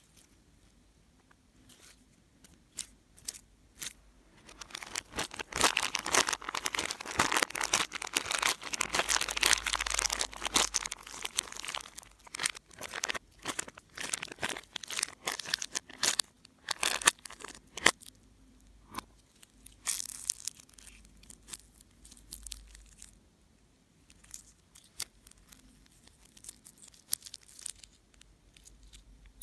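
Slime being kneaded and stretched by hand, giving sticky crackling and popping. It is densest from about five to twelve seconds in, then thins to scattered pops and clicks.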